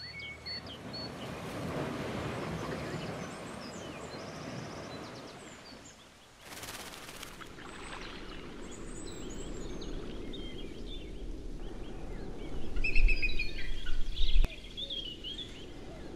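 Outdoor ambience with a steady wash of background noise and scattered short bird chirps and calls. A louder low rumble comes in for about two seconds in the last third.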